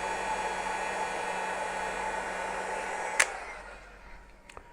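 Electric heat gun blowing steadily with a faint whine. About three seconds in there is a sharp click, and the gun winds down and fades out.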